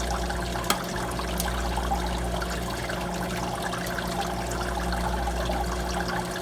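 Water trickling and splashing down the evaporator of a Manitowoc ice machine, circulated by its water pump near the end of the freeze cycle as the ice builds toward harvest, over the machine's steady low hum. A short click comes about three-quarters of a second in.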